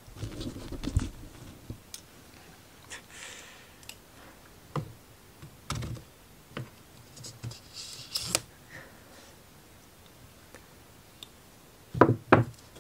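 Scattered light knocks and brief scrapes of a laser-cut plywood kit sheet being handled on a tabletop, with two sharp knocks close together near the end.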